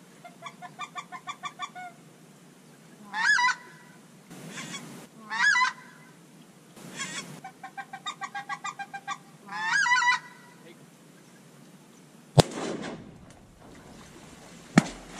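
Duck calling in quick, even runs of about eight quacks, with three louder goose honks between them, followed by two shotgun shots about two and a half seconds apart.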